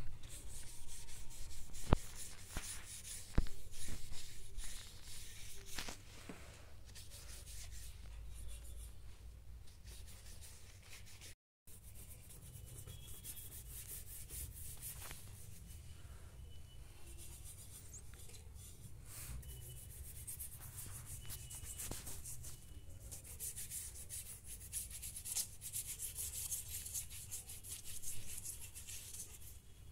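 Paintbrush scrubbing paint across paper in quick back-and-forth strokes, a dry rubbing hiss, with a couple of sharp taps in the first few seconds.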